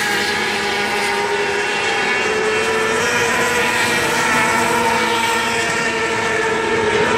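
Engines of a field of winged race cars running around a dirt oval: many engines sounding at once in a steady, unbroken blend.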